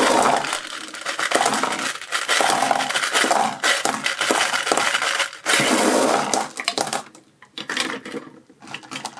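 A stream of small round candies pouring out of an upturned plastic bottle, clattering and bouncing on a hard tabletop in a dense rattle that thins to scattered clicks about seven seconds in.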